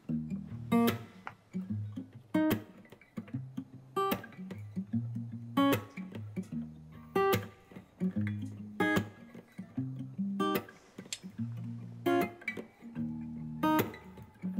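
Background music: strummed acoustic guitar over a sharp, regular beat about every second and a half.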